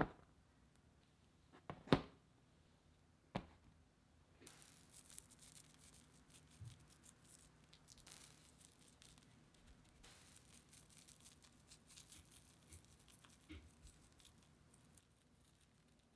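Three light taps in the first few seconds, then a faint, fine crackling rustle of dried parsley flakes being rubbed between fingers and sprinkled over the cream-topped baguettes, which stops near the end.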